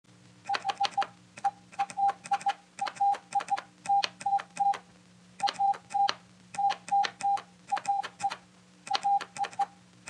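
Morse code sent on a straight telegraph key. Each press sounds a steady single-pitch beep, short or long, with a click at press and release, spelling out "HELLO WORL" letter by letter over a faint steady hum.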